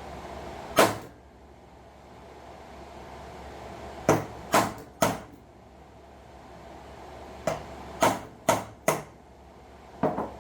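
Sharp knocks on the 1979 Honda CBX clutch housing as parts are worked out of it after its rivets were drilled off. There is a single knock, then a quick group of three, then four, then two close together near the end.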